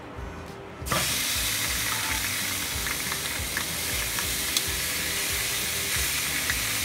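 Mayonnaise-coated chicken breasts sizzling on a very hot ridged grill pan. The sizzle starts suddenly about a second in as the first piece goes down, then holds steady, with a few faint clicks of metal tongs.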